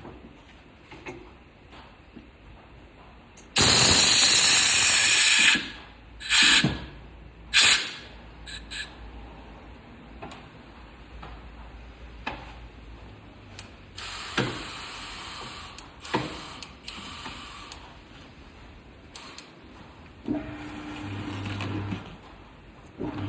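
Compressed air hissing in bursts while a tyre is being changed: one loud blast about two seconds long, then two short blasts, with lighter hisses and workshop knocks after.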